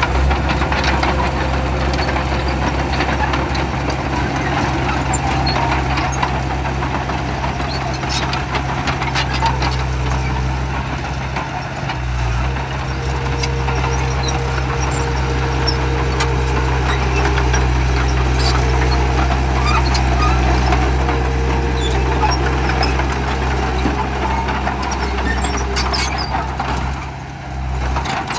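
Bulldozer's diesel engine running steadily under work, with occasional short knocks and clanks over it; the engine sound drops briefly near the end.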